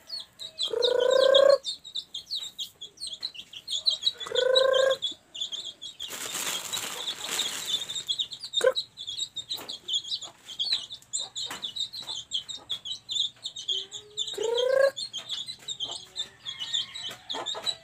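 Chicks peeping constantly in short, high-pitched chirps while they feed, with a hen calling three times in louder, lower calls. A rustling hiss runs for about two seconds near the middle.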